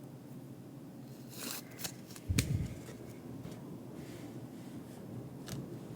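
Pokémon trading cards and packs being handled at a desk: soft, quiet rustling and light taps, with a slightly louder rustle about two and a half seconds in.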